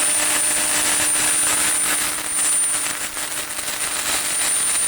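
25 hp Sullair rotary screw air compressor running, a steady machine noise with a constant high-pitched whine and a low hum.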